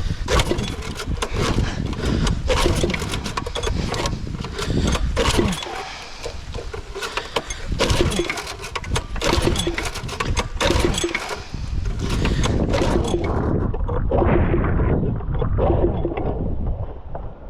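Wind buffeting the microphone and rain pattering, with many irregular small knocks and clatters of handling close by.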